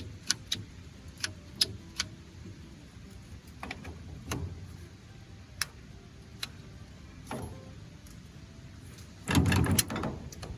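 Scattered sharp metal clicks and knocks from handling tools and PTO driveline parts, with a louder rattling clatter lasting under a second about nine seconds in.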